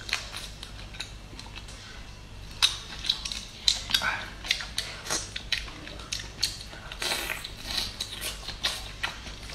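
Garlic prawns being pulled apart and peeled by hand: irregular sharp clicks and wet crackles of the shells cracking and separating, with chewing as a piece goes into the mouth near the end.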